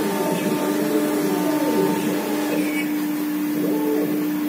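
Single 5.5 kW spindle of a 1325 CNC router running with a steady hum while it engraves a board, with fainter tones sliding up and down as the head moves.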